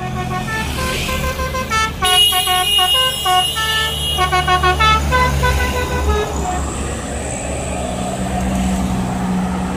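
Medium tourist bus passing with its multi-tone musical horn (telolet horn) playing a quick tune of short stepped notes over the low rumble of its engine. The tune stops about six seconds in and the engine carries on, with a low hum near the end.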